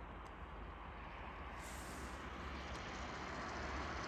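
Car running with a steady low rumble and a faint hiss, growing slightly louder toward the end.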